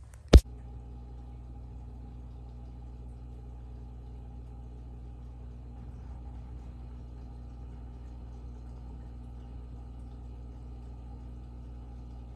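A sharp smack as a hand hits the camera, then the steady hum of an aquarium pump, unchanging in pitch and level.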